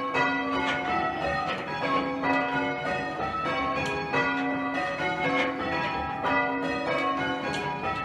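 A light ring of six church bells, the tenor weighing about 4½ cwt, rung in changes: the bells strike one after another in quick, even succession, each note ringing on under the next.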